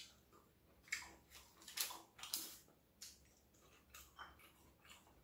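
Quiet chewing of a mouthful of grilled fish, with a scatter of soft, wet mouth clicks.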